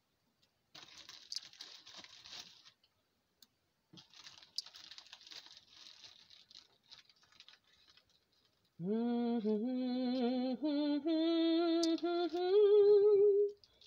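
Hands tearing partly frozen cooked turkey into chunks, a soft crackly tearing in two stretches. From about nine seconds a woman hums a short tune in held notes that step upward, louder than the tearing, for about five seconds.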